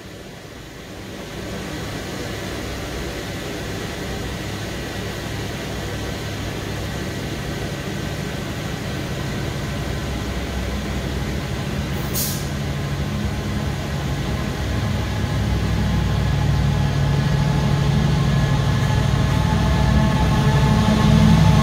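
Colas Rail Freight Class 70 diesel locomotive approaching through a station with its engine running, growing steadily louder as it draws near. A short, high hiss about twelve seconds in.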